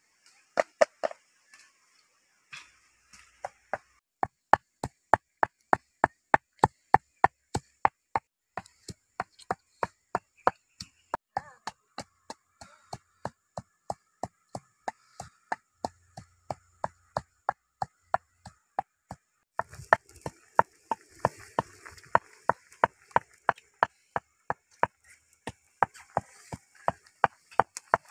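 Pestle pounding in a clay mortar, a steady beat of about two to three strikes a second. A faint hiss joins under the strikes about two-thirds of the way through.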